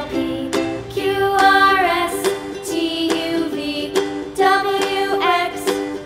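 Children's song playing: a sung melody over an instrumental backing with a steady beat.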